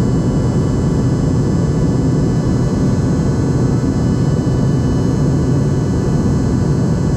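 Steady drone of an airliner's engines and rushing air heard inside the passenger cabin in flight, a constant low, even roar with a faint steady hum.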